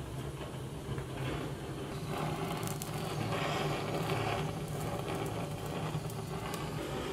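Handheld gas blowtorch burning with a steady rush of flame as it singes the skin of a pig's head, a little louder for a couple of seconds in the middle.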